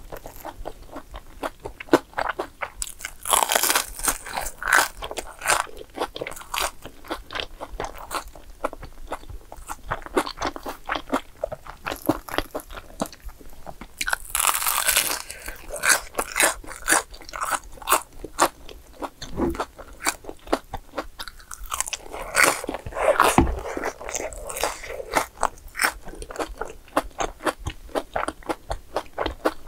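Crunching and chewing of a crumb-coated fried cheese ball, many crisp crackles throughout. Louder bursts of biting come about 3, 14 and 22 seconds in.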